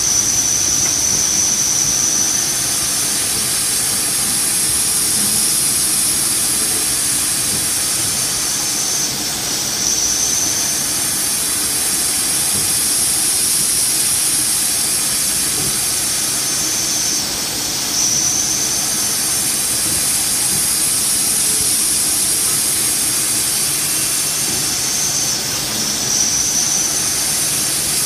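Hurco CNC vertical mill running a small cutter at high spindle speed, cutting a linen phenolic clevis blank: a steady high whine and hiss that dips briefly about every eight seconds before picking up again.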